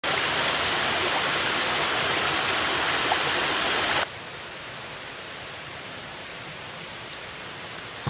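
Water from a small cascade splashing steadily into a rock pool, a full, even rushing sound. About four seconds in it cuts off abruptly to a much quieter, duller steady hiss of background ambience.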